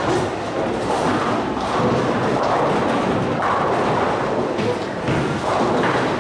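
Busy bowling alley: bowling balls rolling and thudding on the lanes and pins crashing, with several sharp knocks.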